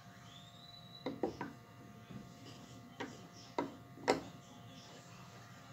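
A wooden spoon knocking lightly against ceramic dishes, six short knocks with a brief ring: three in quick succession about a second in, then three more spread out near the middle.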